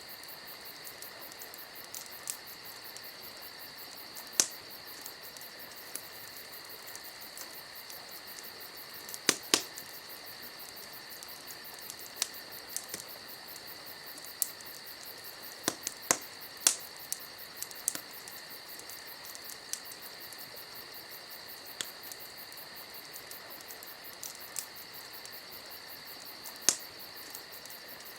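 Campfire crackling, with irregular sharp pops, several of them loud, over a steady high chirring of insects.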